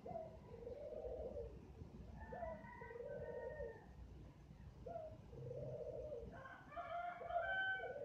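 Night-time nature sounds: a low, arching call repeating about every second, with higher chirping calls joining in twice, the second time loudest near the end.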